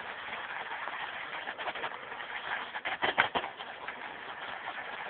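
Shaving brush whipping tallow shaving soap into lather in a bowl: a steady wet swishing, with a few sharper taps about three seconds in.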